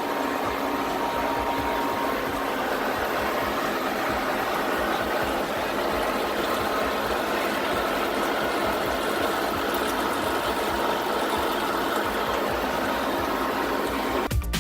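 Rebuilt Link-Belt gearbox running steadily on a post-repair test run, at about 1200 to 1300 RPM, filled with fresh oil, to check that it runs smoothly. Music cuts in at the very end.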